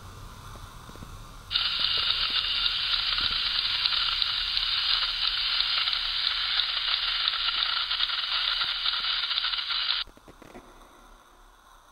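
Loud hiss of television static that cuts in suddenly about a second and a half in and stops abruptly near the end, leaving only a faint low background.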